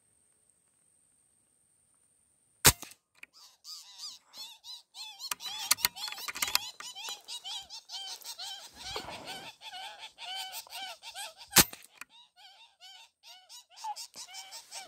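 A sharp rifle shot a few seconds in, then many short, repeated bird cries. A second shot comes near the end, about nine seconds after the first.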